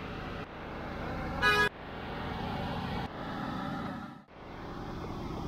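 Busy market street noise with one short vehicle horn honk about a second and a half in, the loudest sound. The background changes abruptly a few times.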